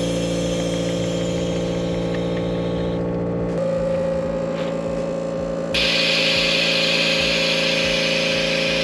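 150 psi onboard air compressor of an airbag suspension kit running with a steady droning hum, pumping up the rear airbags to raise the vehicle. A louder hiss of air joins about six seconds in.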